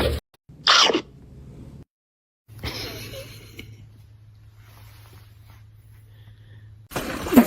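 A single short, sharp sneeze about a second in, followed after a gap by a faint steady low hum, and a loud sudden noise near the end.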